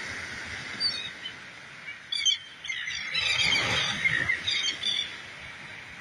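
A flock of seabirds calling in short cries several times, with a louder cluster of calls in the middle, over the steady wash of small waves breaking on a sandy beach.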